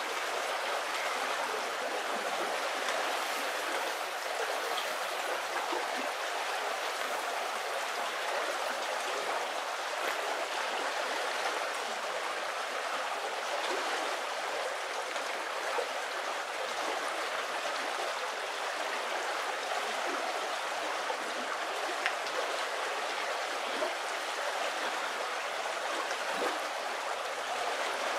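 Shallow river running steadily over a pebbly bed: a continuous, even sound of flowing water.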